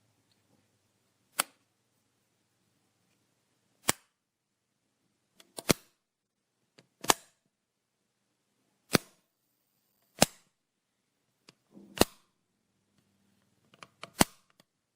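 Light switch being flicked, sharp single clicks about every one and a half to two seconds, eight in all, some with a faint smaller click just before the main snap.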